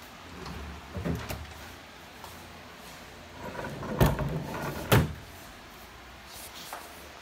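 Wooden sliding barn door rolled along its steel track rail on roller hangers, rumbling, with two sharp clunks as it stops, after a couple of lighter knocks about a second in.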